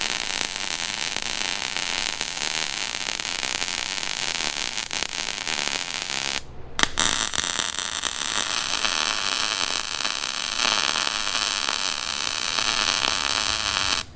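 Wire-feed (MIG) welding arc running on a steel truck frame rail, a steady hiss. It breaks off briefly about six and a half seconds in, then runs again as a second bead.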